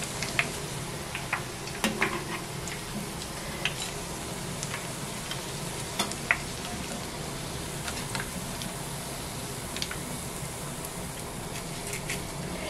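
Hot oil sizzling steadily in a shallow frying pan as breadcrumb-coated bread pieces fry, with scattered sharp crackles and ticks.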